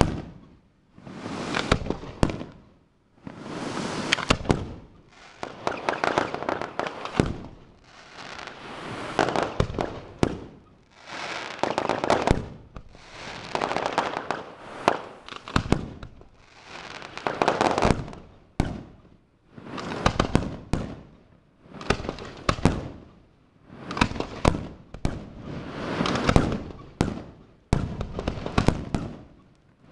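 Aerial fireworks display: shell after shell bursting, about one burst every two seconds. Each burst is a rapid run of sharp bangs and crackles.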